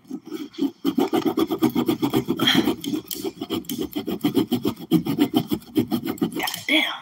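Large kitchen knife sawing back and forth through a plastic water bottle, a fast, steady run of many quick scraping strokes.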